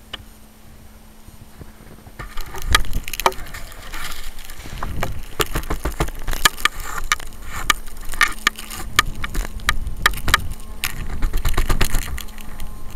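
Close handling noise on the foam RC plane's onboard camera: crunching snow, knocks and rustling as gloved hands grab the plane and lift it out of the snow, starting about two seconds in. Its propeller is stopped, so no motor is heard.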